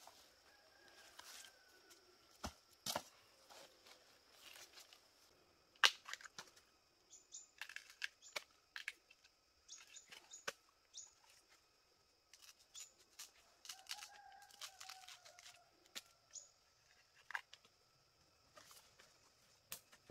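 Fresh bamboo shoots being peeled by hand, the husk sheaths torn and snapped off in irregular crisp cracks and rustles.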